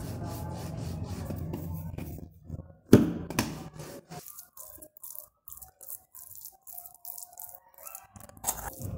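Stainless steel rolling pin rolling dough on a wooden board: a low rumble for the first two seconds or so, then two sharp knocks about three seconds in, followed by quieter scattered taps and scrapes.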